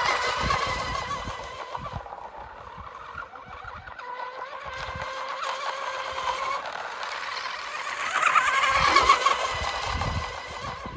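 Radio-controlled hydroplane speedboat running flat out over the water, its motor giving a high whine over the hiss of its spray. It is loudest at the start and again about eight to nine seconds in, as the boat passes close, and fades in between.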